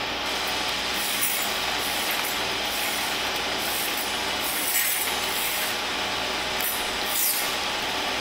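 Silkworm cocoon cutting machine running steadily: a continuous rasping, sawing noise over a low hum, with a high hiss that pulses at regular intervals as the cocoons are sliced open.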